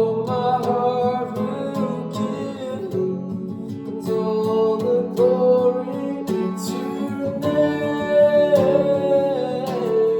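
Acoustic guitar strumming under a singing voice that holds long, wavering notes without words.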